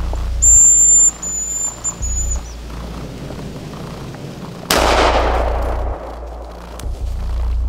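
A high, thin hazel grouse whistle call, a long note followed by shorter stepped notes. Then, near the middle, a single 20-gauge Beretta 686 shotgun shot cracks and rings out, fading over about a second.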